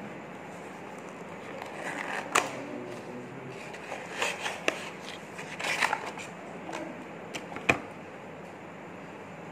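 Hands handling a small cardboard serum carton and a plastic serum bottle: short bursts of rustling and crinkling packaging, with a few sharp clicks, the sharpest near the end.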